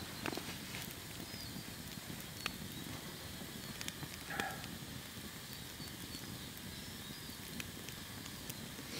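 Campfire crackling, with scattered sharp pops over a quiet outdoor background. A brief pitched sound comes about four and a half seconds in.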